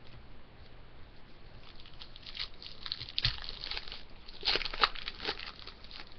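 Trading cards being handled and flipped through: papery rustling and crinkling with a few sharp clicks, loudest about three seconds in and again near the fifth second.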